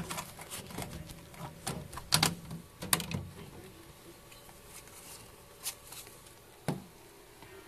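Irregular sharp clicks and crackles from a bosc monitor, thick in the first three seconds and then two single clicks near the end.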